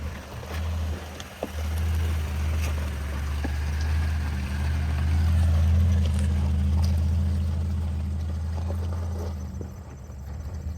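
Toyota Tundra's 5.7-litre V8 engine pulling at low speed up a rocky incline, a steady low drone that swells through the middle and eases near the end, with scattered faint clicks and knocks.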